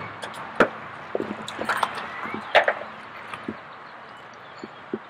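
Latch and lid of a lockable side storage compartment in a Chevrolet Silverado 1500's bed, unlocked and lifted open: a few sharp clicks and knocks, the loudest about half a second in and again at two and a half seconds.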